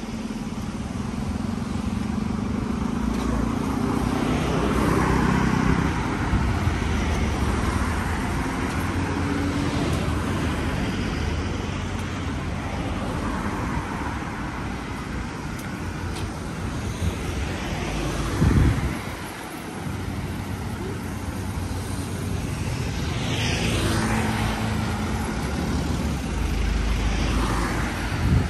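Street traffic: cars passing with a steady low engine and tyre rumble that swells and fades, and two short low thumps, one about two-thirds of the way through and one at the end.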